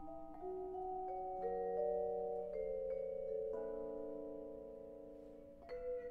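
Vibraphone notes struck one after another and left ringing, overlapping into a sustained chord, some notes wavering as they ring. Shortly before the end a louder cluster of notes is struck.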